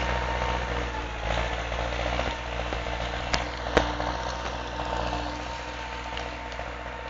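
MTZ-82 tractor's four-cylinder diesel engine running steadily, with two sharp knocks about half a second apart near the middle.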